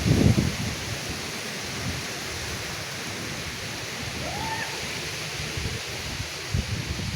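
Heavy rain falling steadily during a thunderstorm, a constant hiss. Low rumbling comes in at the start and again near the end, and a brief faint rising-and-falling call sounds about four seconds in.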